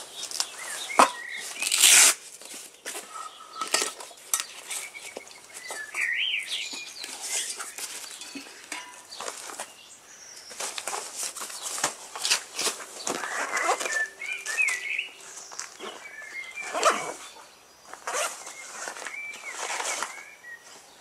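Handling a canvas shoulder bag: fabric rustling, flaps and straps being pulled open, and items being taken out, with a short loud tearing rasp about two seconds in.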